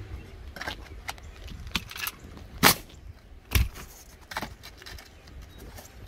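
Scattered sharp clicks and knocks of shingles and metal flashing being handled and set on a roof deck, with two louder knocks near the middle, the second one a heavier thump.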